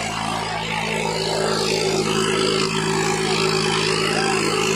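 Swaraj 855 FE tractor's three-cylinder diesel engine running steadily while pulling trolleys, getting a little louder about two seconds in as it comes closer.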